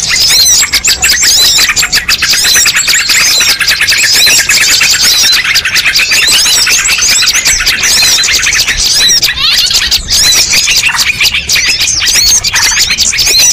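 A dense chorus of many small songbirds chirping and calling over one another, with quick, rapidly repeated chirps and short whistled notes that never pause. It is a bird-lure recording that mixes the calls of many species to draw wild birds in.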